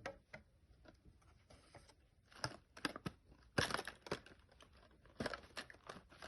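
Plastic and cardboard packaging being handled, with scattered crinkles and light clicks as a small toy keychain is fitted back into its box; the busiest handling comes a little past the middle.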